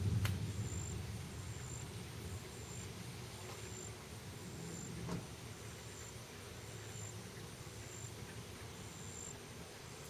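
A low thunder rumble dies away in the first second, and a fainter low rumble lingers. Over it, an insect gives a short high-pitched chirp about once a second, evenly spaced.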